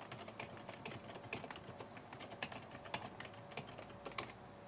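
Computer keyboard being typed: a quick, irregular run of light key clicks.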